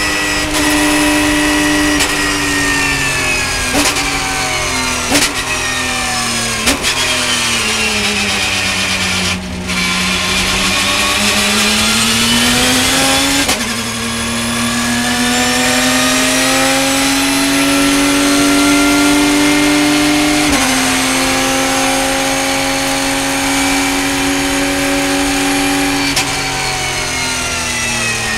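Porsche race car's flat-six engine heard from inside the cockpit, braking from high speed with several sharp rev blips on downshifts in the first seven seconds, the revs sagging low through a slow corner. It then pulls hard out of the corner with two upshifts, about halfway and two-thirds of the way through, and the revs fall again near the end as it slows.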